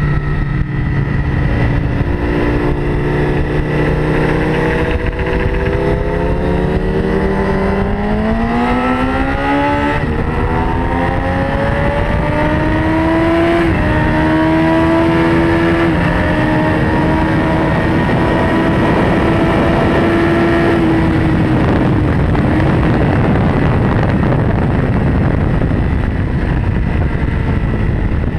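Sport bike engine under hard acceleration on a race track, its pitch climbing in steps through the gears, then held steady. About 21 s in the engine note drops away and loud wind rush takes over, with a lower engine note returning near the end.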